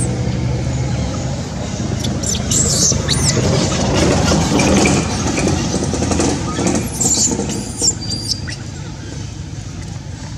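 Short, high-pitched squeaks from a baby macaque, a couple about three seconds in and a few more around seven to eight seconds in, over a steady low outdoor rumble.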